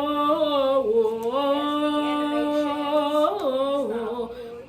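A voice singing or humming a few long held notes without words, gliding slowly between pitches.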